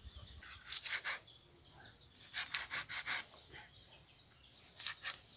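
Kitchen knife cutting through a slaughtered chicken carcass, short sawing and scraping strokes in three bursts.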